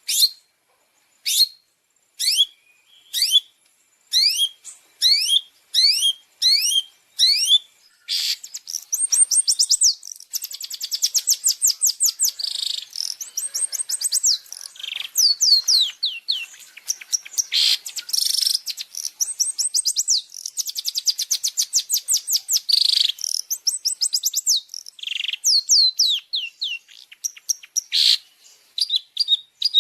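Songbird singing: sharp single downward-sweeping calls about once a second, breaking about eight seconds in into fast, dense runs of high chattering notes.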